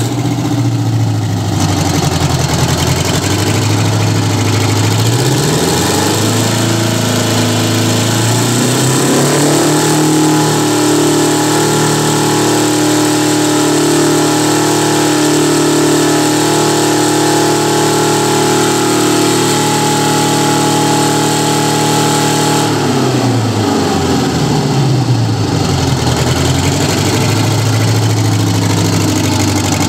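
Detroit Diesel 8V71 two-stroke V8 diesel idling, then revved up about five seconds in and held at high speed for some fifteen seconds before dropping back to idle about twenty-three seconds in.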